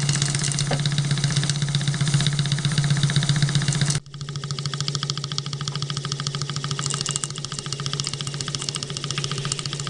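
Half-scale three-cylinder triple-expansion model steam engine running under steam on its first trial, a steady hum with a fast, even beat from its strokes and valve gear. The sound breaks off abruptly about four seconds in and carries on a little quieter.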